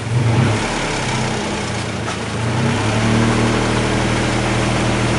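Four-wheel-drive vehicle's engine revving as it is put in gear to spin its wheel against an oiled board: it revs up at the start, eases off, then rises again about three seconds in and holds steady.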